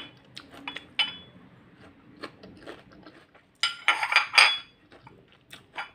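Crunching and chewing of raw bitter gourd (ampalaya) slices close to the microphone: scattered crisp crackles, with a burst of louder crunches about three and a half seconds in.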